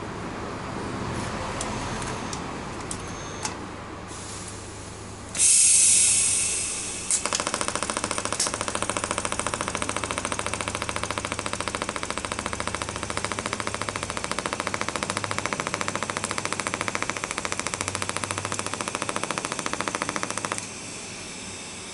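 TIG welding on titanium exhaust tubing with a pulsed arc: a loud hiss as the arc starts, then a rapid, even pulsing for about thirteen seconds, cutting off abruptly near the end.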